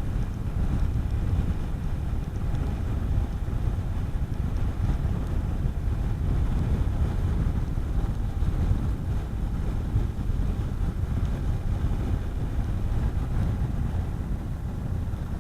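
Honda CB400SS single-cylinder engine running steadily at cruising speed, with wind rushing over the helmet microphone.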